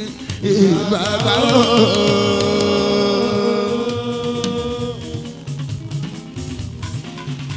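Live fuji music: a male lead singer sings a wavering, ornamented line, then holds one long note for about three seconds before the band carries on under him with bass, guitars and drums.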